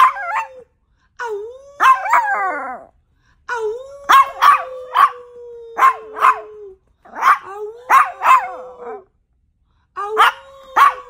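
Yorkshire terrier howling in a string of wails, one every couple of seconds, each a long held tone that sags slightly in pitch and is broken by sharp yips and barks. The longest wail comes near the middle and lasts about three seconds.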